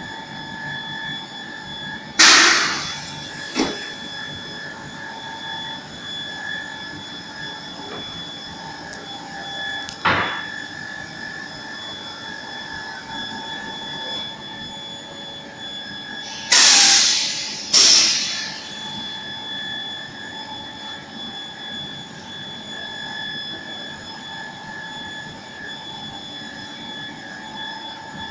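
Pneumatic press with a steady machine hum, broken by short, loud bursts of air hiss that die away quickly: one about two seconds in and two in quick succession past the middle, with a sharp click near ten seconds. These are the press's air cylinders moving the platen.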